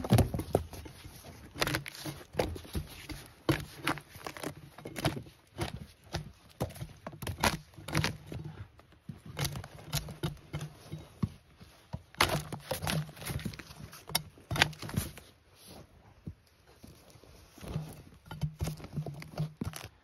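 Wet, rotting bark being pried and scraped off an alder log with a long-handled tool: irregular scrapes, cracks and knocks as chunks tear loose and fall.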